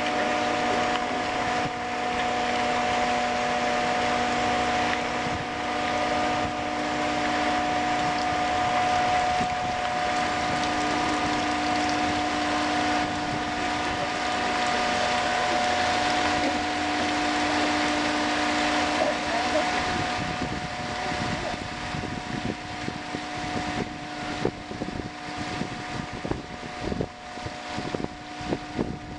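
Anderton Boat Lift's caisson gate machinery running with a steady hum of several held tones as the guillotine gate is raised. Toward the end, uneven splashing and crackle come in as water starts to spill out from under the rising gate.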